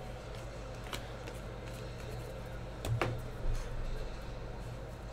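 Trading cards being flipped through by hand: a few soft slides and taps of card on card, one about a second in and a couple around three seconds in, over a steady low hum.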